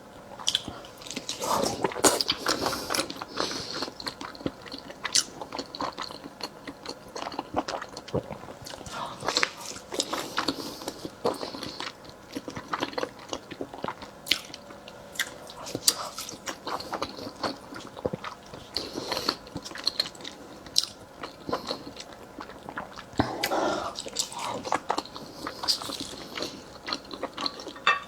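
A person eating salmon close to the microphone: biting and chewing, with irregular wet mouth clicks and smacks.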